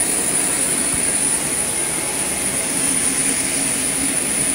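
Loud, steady jet turbine noise on an airport ramp: a constant rushing roar with a high, unwavering whine over it.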